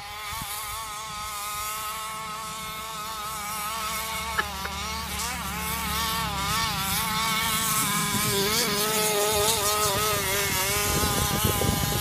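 Losi 5ive-T's small two-stroke gas engine running at high revs, a steady buzz whose pitch wavers up and down as the throttle is worked, growing louder as the truck comes closer towing the sled. A gust-like rush of low noise comes in near the end.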